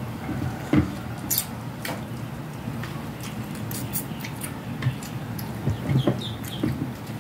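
Close-up eating sounds: scattered wet clicks and smacks of chewing and of fingers picking at dried fish, the loudest about a second in, over a low steady hum.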